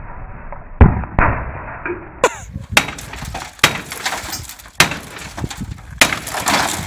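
Bus window glass being smashed with the wooden stock of a rifle: about five sharp crashes with breaking, tinkling glass, roughly a second apart. They follow two muffled thuds in the first second or so.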